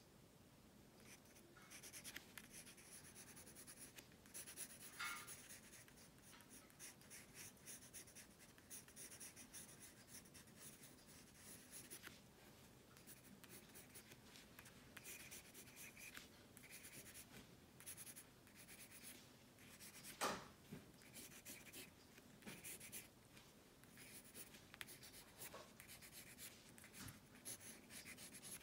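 Pencil lead scratching faintly on paper in many short sketching strokes. About two-thirds of the way through there is a single sharper knock.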